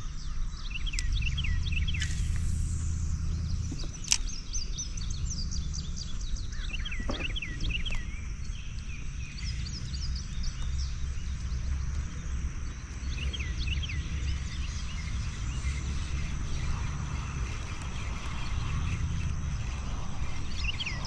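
Songbirds chirping over and over in short phrases, over a steady low rumble. A quick high whoosh comes about two seconds in and a single sharp click about four seconds in.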